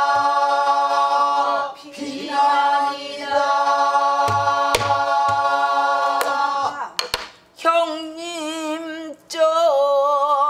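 Pansori singing of 'binaida' (I pray) on long held notes by several voices, with a buk barrel drum struck a few times by a stick. From about seven and a half seconds a single voice sings on with a wide, wavering vibrato.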